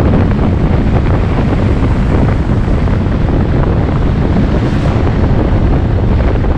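Wind buffeting the microphone on a moving motorbike: a loud, steady rumble.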